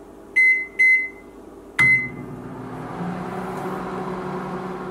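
Microwave oven keypad beeping: two short high beeps as the cooking time is keyed in, then a third beep with the start press just under two seconds in. After it the microwave starts running with a steady hum as it begins heating.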